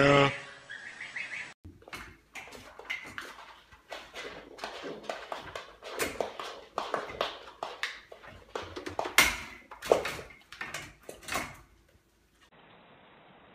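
The tail of a goat's bleat, then a small goat's hooves clattering and tapping on a wooden floor as it knocks against a metal baby gate, in irregular bursts of sharp clicks and knocks, some of them briefly ringing. Near the end the knocking stops and only a faint steady hiss remains.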